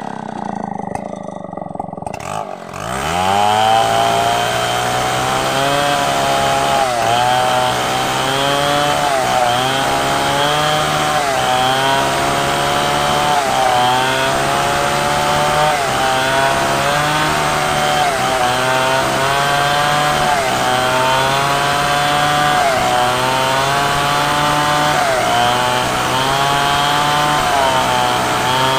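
Stihl MS 070 two-stroke chainsaw, quieter for the first couple of seconds, then revving up and ripping lengthwise through a coconut-palm log. Under load its pitch dips and recovers every second or two as the chain bogs in the wood.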